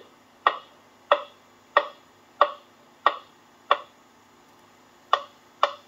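Left-channel identification test signal from a demonstration cassette, played through the Unitra ZRK MK 121 mono cassette recorder's speaker: a series of short, sharp ticks, about one and a half a second, with a pause of about a second and a half some four seconds in. A faint steady hum runs underneath.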